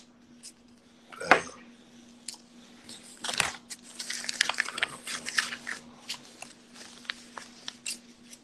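Paper banknotes rustling and crackling as a stack of bills is handled and flipped close to a phone's microphone, with a louder knock about a second in. A faint steady hum underneath.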